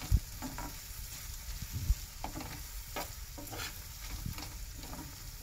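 A spoon stirring prawns in masala gravy in a frying pan, scraping and knocking against the pan over a steady sizzle. Two loud knocks stand out, one right at the start and one just under two seconds in.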